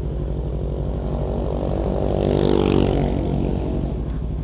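Kawasaki Ninja 250 FI's parallel-twin engine idling steadily. Another motorbike passes by in the middle, its sound swelling and fading away.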